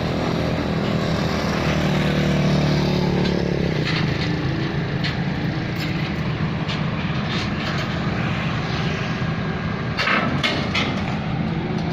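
Heavy diesel engine running steadily, rising in load for a few seconds early on and then easing back, with a few short knocks about ten seconds in.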